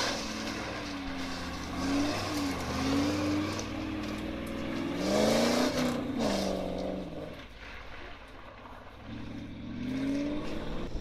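Modified Land Rover's engine revving up and down under load on rough ground, its pitch rising and falling repeatedly. The loudest, hardest rev comes about halfway through, then it eases off and builds again near the end.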